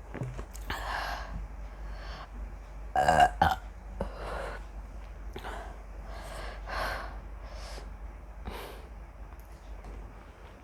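A woman burping from fizzy cola, several short burps with one loud, drawn-out burp about three seconds in and quieter breaths between them.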